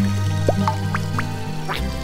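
Cartoon background music with a steady low bass line that steps between notes, and a few short upward-gliding blips over it.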